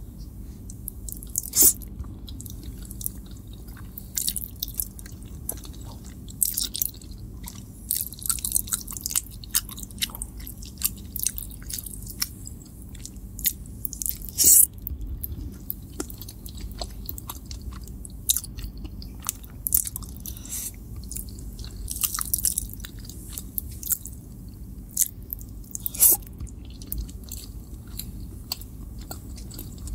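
Close-miked chewing of spaghetti carbonara: wet, sticky mouth clicks and smacks come in irregular clusters. A few louder sharp smacks stand out, about two seconds in, halfway through and near the end.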